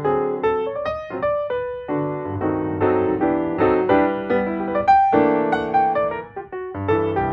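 Background instrumental music: a continuous run of quick, separate notes, most likely a keyboard melody.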